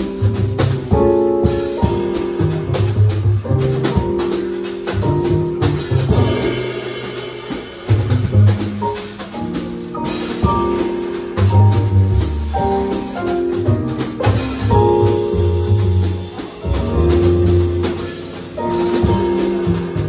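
Live jazz from a piano trio of acoustic piano, upright bass and drum kit, with the saxophone resting. Changing bass notes sit under the piano's chords and lines, with steady cymbal and drum strokes throughout.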